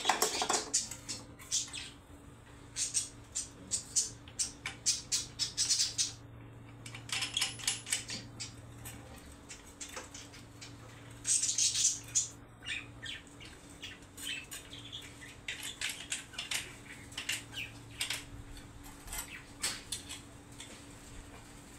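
A piece of sheet metal being cut and handled by hand: clusters of sharp metallic clicks and clinks, several in quick succession, over a faint steady hum.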